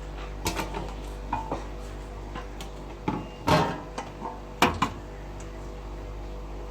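Metal clinks and knocks of tools and parts being handled as a switching power supply is taken out of an inkjet unit, loudest in a cluster from about three to five seconds in, over a steady machine hum.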